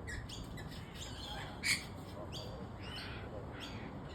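Birds chirping: a quick run of short, high calls, several a second, with one louder call about a second and a half in, over low steady background noise.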